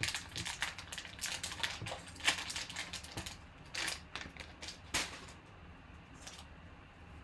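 Foil wrapper of a trading-card pack crinkling as it is opened, then a few light clicks of hard plastic graded-card cases being handled.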